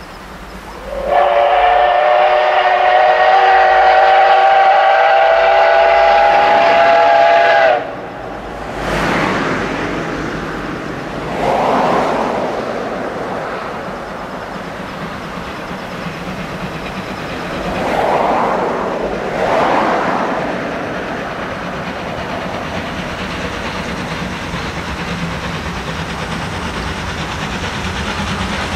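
Steam locomotive D51 498's whistle: one long blast of about seven seconds, several tones sounding together, cut off sharply. The train then runs on, with a few swelling rushes of noise over a steady rolling rumble.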